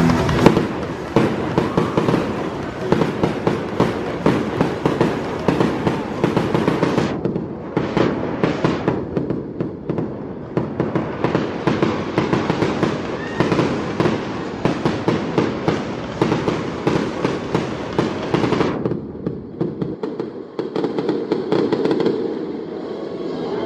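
Fireworks going off in a dense barrage: rapid, overlapping bangs and crackling pops from rockets and comets launched from the ground and bursting overhead.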